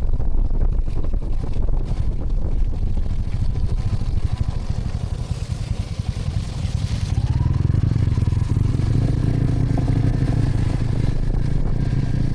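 Motorcycle engine running on the move, with wind rumbling on the microphone; about seven seconds in the engine note rises briefly and then holds steady and stronger.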